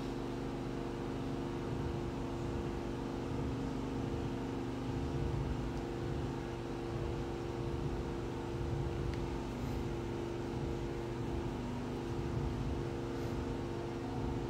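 Steady mechanical hum: a machine drone with a few held low tones over a low rumble.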